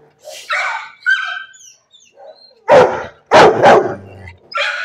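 A dog barking: three loud barks a little past halfway through, with shorter, quieter barks and yips before and after.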